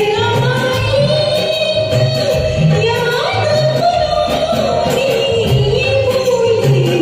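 A woman singing a Hindi film-style song, holding long gliding notes over instrumental accompaniment with a steady percussion beat.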